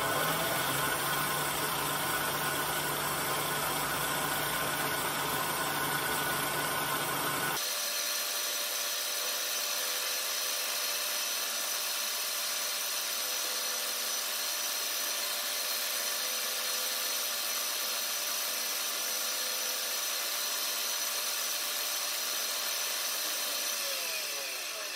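Vertical milling machine running, its end mill taking a light facing pass across a workpiece clamped in the vise as the table is fed by hand, a steady machine whine with several tones. About eight seconds in the low rumble drops away abruptly, and near the end the pitch falls as the spindle spins down.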